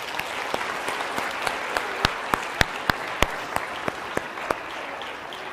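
Audience applauding, with a few sharp, loud claps close by standing out around the middle; the clapping eases a little near the end.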